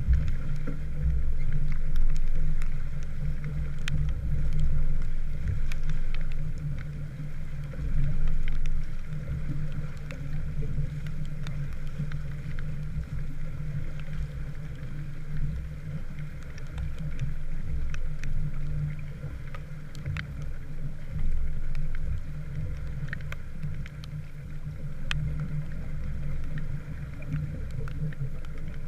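Small sailboat under way: a steady low rumble of wind and water along the hull, with scattered faint ticks.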